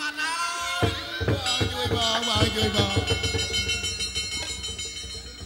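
Khmer Bassac opera ensemble music: held instrument tones, then drums coming in about a second in with a quick run of strokes that thins out near the end.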